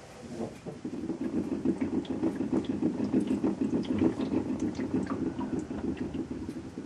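Fuel sloshing in the full tank of a 2011 Honda Insight hybrid as the rear of the car is rocked, together with a rapid, rattling rumble from inside the tank. It builds about a second in and eases near the end. The owner suspects the fuel level float bumping into something inside the tank.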